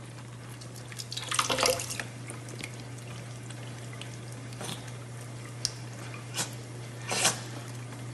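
Thin stream of water running from a kitchen faucet into a stainless steel sink over a steady low hum, with a few brief splashy sounds as a cat laps at the stream.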